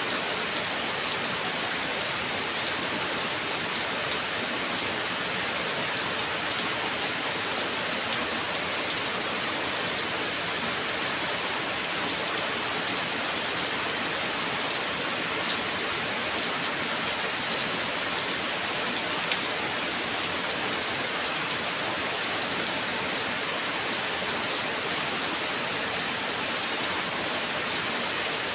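Heavy rain falling steadily: an even hiss that neither builds nor fades, flecked with faint drop ticks.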